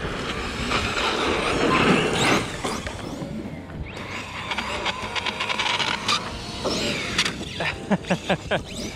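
Brushless electric RC truggy (1650kV Hobbywing motor on 6S) being driven: a loud rush of tyre and drivetrain noise in the first couple of seconds, then quieter running, and near the end several quick throttle blips, each a short gliding motor whine.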